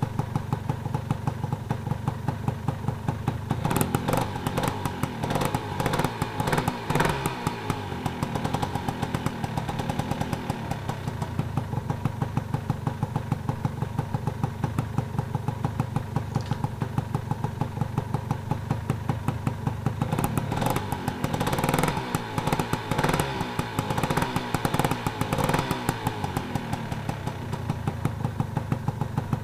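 Honda NSR 125 R's single-cylinder two-stroke engine idling, revved in a series of throttle blips about four seconds in and again about twenty seconds in.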